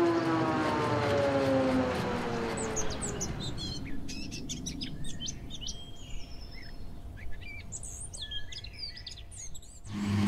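An engine's steady drone drops in pitch and fades away over the first few seconds, then small birds chirp and twitter.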